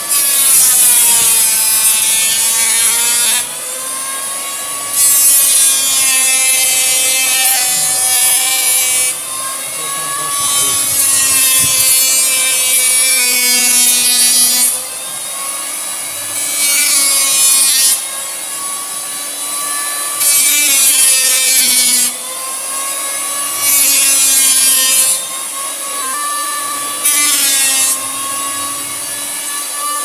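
Wood being planed with a power planer in about seven passes of a few seconds each, loud and scraping during each cut. Between the cuts the machine runs on at a lower level with a steady tone.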